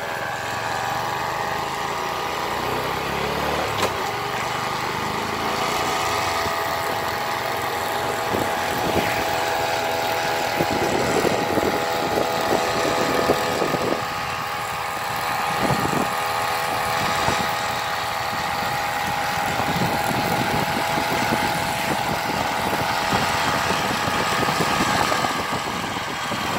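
Small 330 brush-cutter engine fitted to a bicycle, running steadily at high revs as the bike is ridden along, a high engine whine with slight rises and dips.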